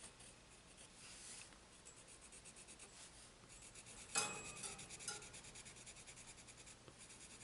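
Colourless blender pencil rubbed on paper in quick, small back-and-forth strokes, blending layers of coloured pencil: a faint, rapid scratching, with one brief louder scrape about four seconds in.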